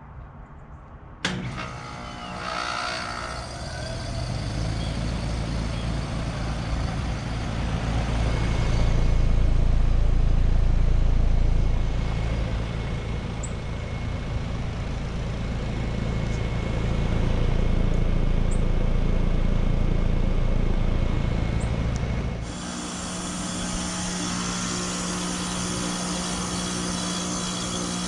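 American Standard Silver Series heat pump outdoor unit in defrost. About a second in, a sudden loud whoosh marks the reversing valve shifting, followed by a steady compressor hum under loud refrigerant hissing. Later the hiss cuts off abruptly, leaving a steadier hum.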